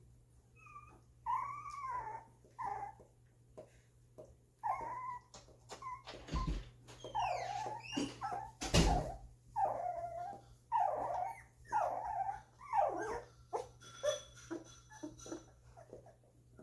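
Two-week-old golden retriever puppies whimpering and squealing in a string of short, high-pitched, rising-and-falling cries. Two knocks sound about six and nine seconds in.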